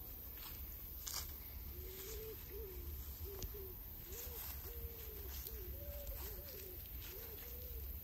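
A dove cooing in a run of short, hooting notes about two a second, beginning a couple of seconds in, over a steady low rumble.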